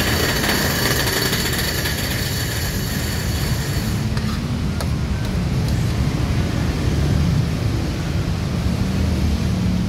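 Steady low rumble of a nearby motor vehicle engine and traffic noise. A higher hiss drops away about four seconds in.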